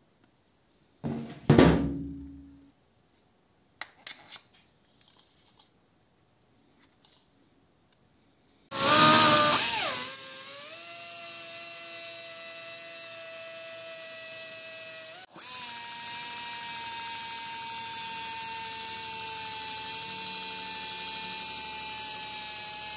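A loud clunk and a few light clicks, then the restored 1991 Soviet pneumatic drill starts with a rush of air and runs with a steady whine while drilling into wood. About fifteen seconds in it stops for a moment and restarts at a slightly higher pitch.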